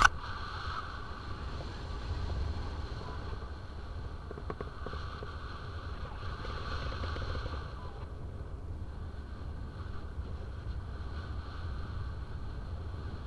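Airflow buffeting the camera microphone in paraglider flight: a steady low rumble of wind noise. A single sharp click comes right at the start.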